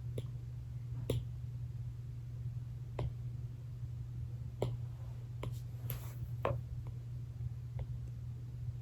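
Scattered clicks from working a computer, about ten at irregular intervals, over a steady low hum.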